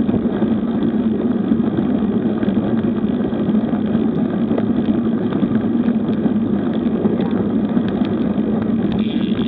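Steady wind and road noise on a bicycle-mounted camera's microphone while riding at about 20 km/h: an even, rushing noise with a constant low hum running under it.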